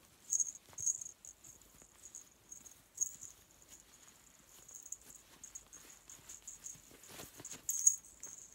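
Soft rustling and scattered small, high clicks from handling a reborn baby doll while its arms are pulled through the sleeves of a cotton bodysuit. The louder clicks come about half a second in, at about a second, at about three seconds and near the end.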